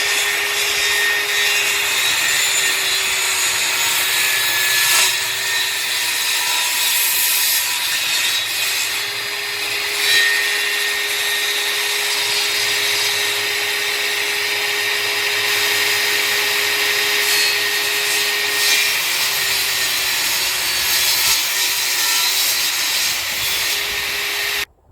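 Table saw running steadily with a constant motor hum and the rushing noise of the blade cutting wood, with a few brief swells. It cuts off abruptly just before the end.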